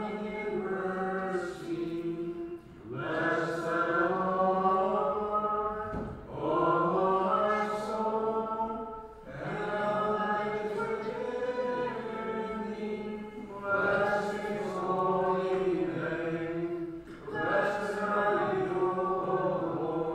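Byzantine-rite liturgical chant sung in phrases of three to four seconds with long held notes and short pauses between.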